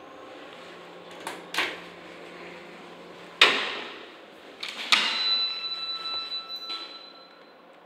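Otis Series 7 traction elevator at its landing. Two light clicks are followed by a loud knock about three and a half seconds in. About five seconds in comes a sharp clack, then a ringing tone that fades over about two and a half seconds, while the car's low hum stops.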